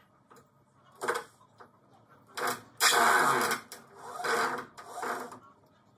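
Cordless drill-driver run in five short bursts on screws in timber, the longest and loudest about halfway through.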